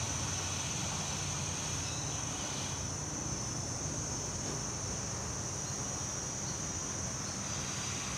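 Steady high-pitched buzzing of insects, with a low rumble underneath from a distant diesel train approaching.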